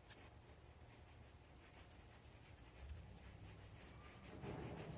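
Faint rubbing and light scratching of a small brush painting acid flux onto a copper pipe, over a low hum; very quiet overall.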